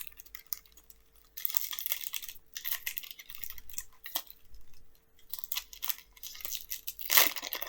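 Foil booster pack wrapper crinkling and tearing as a Pokémon card pack is opened, in two stretches of rustling with a short pause between.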